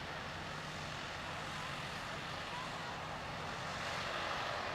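Heavy diesel construction machinery running steadily, a low engine drone under a broad hiss that swells slightly near the end.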